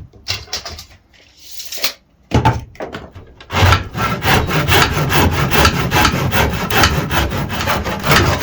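A few knocks as a wooden strip is handled, then from about three and a half seconds in a hand saw cutting through the wood in quick, even back-and-forth strokes.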